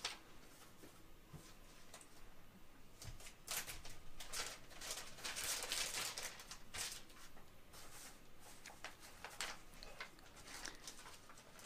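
Soft rustling and crinkling of a clear plastic bag and a paper sheet being handled, in irregular bursts that are busiest in the middle.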